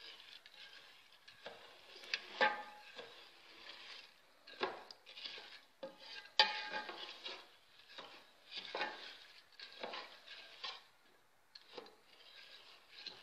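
A spoon stirring uncooked rice in coconut milk and turmeric in a pot, scraping and clinking against the pot in irregular strokes about once a second, with one sharper clink about halfway through.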